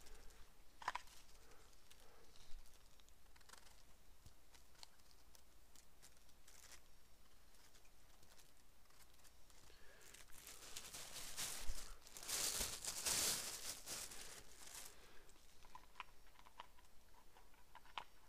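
Faint footsteps and rustling on a spruce-forest floor of needles, twigs and undergrowth, with scattered small cracks. A louder rustle lasts a few seconds about two-thirds of the way in.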